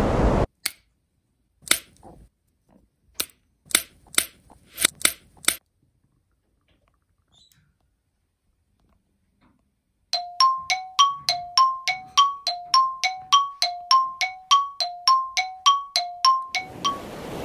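A few sharp clicks, then after a pause a quick two-note chime, dings alternating between a lower and a higher note about three times a second for some seven seconds.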